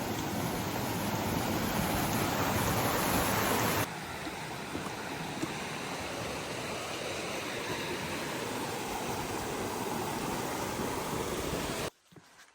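Steady rushing water, such as a stream or cascade. It drops in level abruptly about four seconds in and cuts off near the end.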